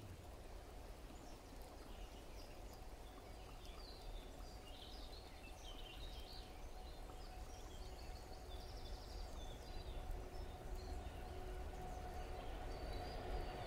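Several songbirds chirping and singing in woodland over a steady low rush. From about halfway through, a distant train's steady hum grows louder as it approaches.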